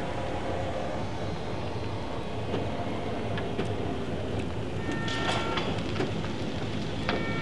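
Train rolling along the track: a steady rumble with clicks of the wheels, and brief high squeals about five seconds in and again near the end.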